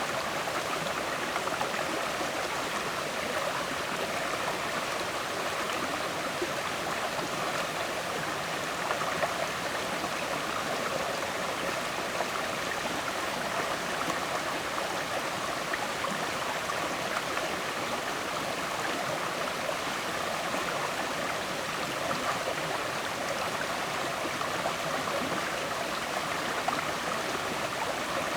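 River water flowing and gurgling, a steady rushing with no breaks.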